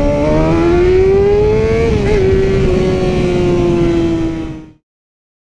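Motorcycle engine pulling under throttle, its pitch rising for about two seconds and then easing slowly down, over a low wind rumble. The sound cuts off abruptly just before the end.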